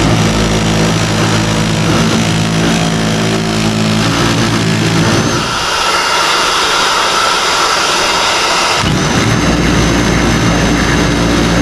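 A motor or engine running loudly and steadily. Its sound shifts to a higher, rougher note about halfway through and drops back to the lower note near the end.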